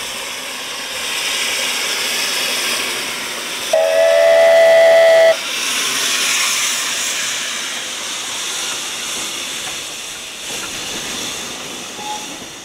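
NGG16 Garratt No. 87, a narrow-gauge South African Railways steam locomotive, passing with a steady hiss of steam. About four seconds in it gives one whistle blast of about a second and a half.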